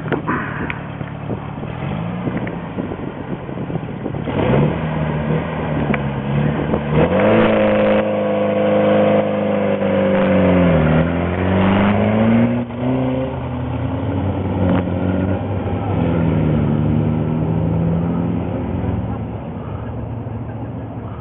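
Two-seat sprint car's engine being push-started by a pickup truck: it catches about four seconds in and revs up and down, loudest in the middle, then runs more steadily as the car pulls away down the dirt track.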